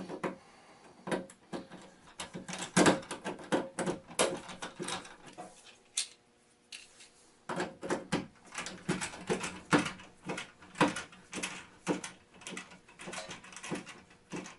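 Irregular clicks, taps and knocks of a tool and hands working on a well pump's sheet-metal control box, with a short quiet spell about six seconds in.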